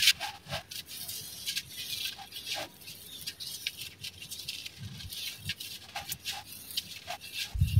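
Hands crumbling dry red dirt and small stones, fine grit pouring through the fingers with a gritty rustle and many small clicks of stones. A sharp click just at the start.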